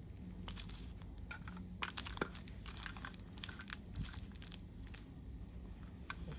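Scattered light clicks and crinkling as a batch of Zippo lighters and their packaging are handled and laid out.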